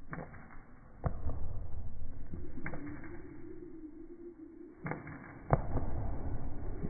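Slow-motion playback of rope jumping: about five dull impacts on a wooden gym floor, spaced irregularly, with a low drone in the middle and the strongest impact near the end.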